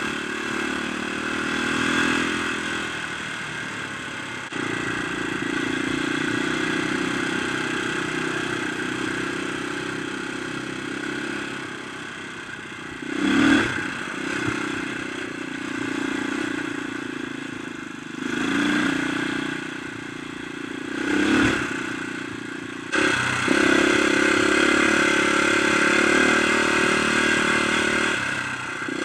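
Dirt bike engine running under the rider on a rough dirt track, the revs rising and falling with the throttle and a few brief louder bursts of revving. The sound changes abruptly twice where the footage cuts.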